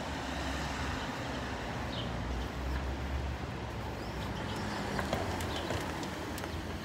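Street ambience: a steady low hum of traffic, with a few faint high chirps.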